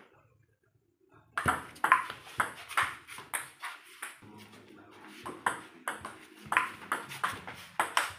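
Table tennis rally: the ball clicks sharply back and forth off the paddles and the table, about two hits a second, starting about a second and a half in after a brief near-silence.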